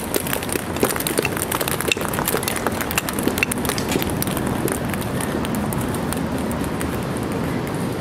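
Dozens of ping-pong balls bouncing down stone steps: a clatter of many quick clicks, dense at first and thinning out over the second half.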